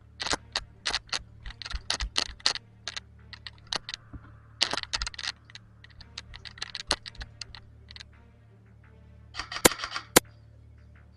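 Airsoft guns firing: irregular clusters of sharp cracks and clicks, with the two loudest cracks near the end.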